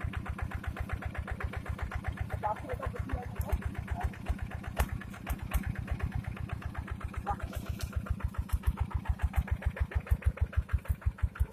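Single-cylinder diesel engine of a two-wheel hand tractor running at idle, a quick, even beat of firing pulses that grows louder near the end.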